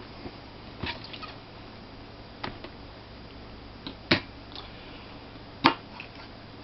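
Sharp clicks and light knocks of a laptop hard drive in its metal case being handled: four distinct clicks spread out about a second and a half apart, with a few fainter taps between them.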